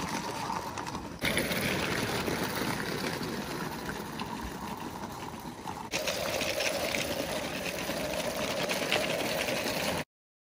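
Mamod Mk 3 live steam locomotive running on small garden-railway track with a fast, even, rattling chuff from its little oscillating cylinders. The sound jumps in level twice and cuts off suddenly near the end.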